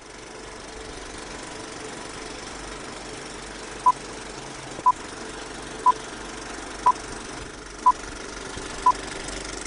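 Old film-leader countdown sound effect: a steady projector-like whir and rattle, with a short beep about once a second, six beeps starting about four seconds in.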